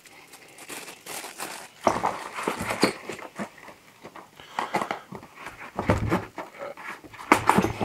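Clear plastic packaging bag crinkling in the hands, then cardboard box inserts rustling and a few soft knocks as kit items are set down in the box, the loudest near the end.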